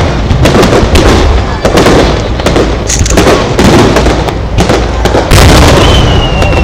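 Fireworks display: aerial shells bursting in quick succession, a dense run of booms. A thin whistle starts near the end and slides slowly down in pitch.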